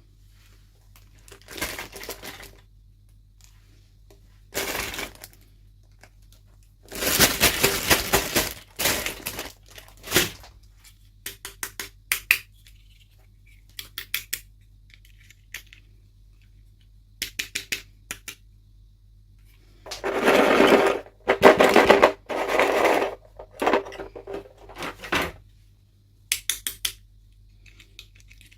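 Unboxing handling of plastic packaging and small miniature toy pieces: irregular bursts of rustling and crinkling with many sharp clicks and taps, the longest bursts about a quarter of the way in and again past the middle.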